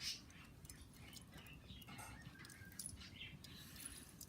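Faint rustling and light clicks of foam squishy toys being handled and set down.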